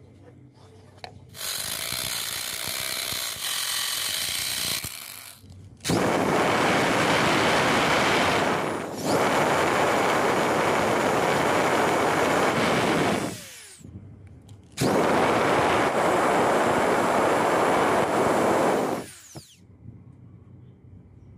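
Cordless drill boring into a metal rod clamped in a bench vise. It runs in long stretches of several seconds with short stops between them, and dips briefly partway through the first long run.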